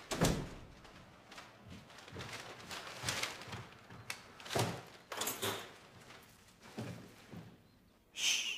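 A door shutting with a thud just after the start, then a few knocks and rustles of shopping bags being set down on a counter. Near the end a man gives a short "shh".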